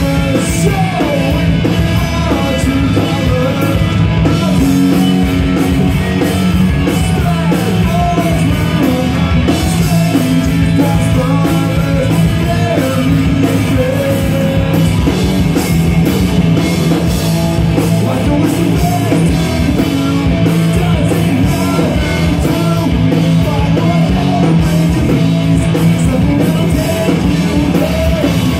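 Punk rock band playing live and loud: electric guitars and drum kit with a singer over them, steady throughout.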